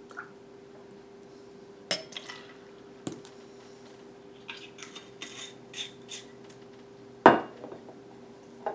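Metal and glass clinks and knocks as bar tools and liqueur bottles are handled on a stone countertop: a stainless jigger and shaker tins set down and picked up, a few light taps in a cluster, and one sharper knock near the end. A faint steady hum lies underneath.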